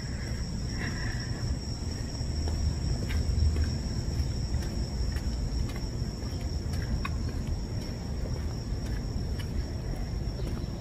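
Insects droning steadily on one high pitch, over a low rumble.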